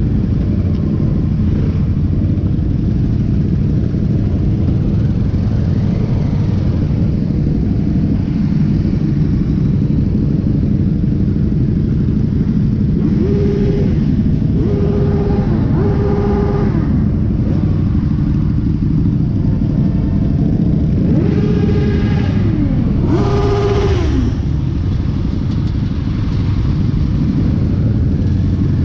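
A column of many motorcycles riding together, their engines making a dense, steady rumble. A horn beeps three times about halfway through and twice more a few seconds later.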